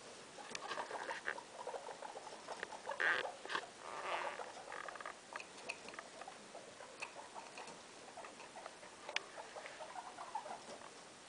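Guinea pigs, a sow and her three young, making soft squeaks and small scurrying, rustling noises as they move about. There are a few sharp clicks, and a slightly louder flurry about three to four seconds in.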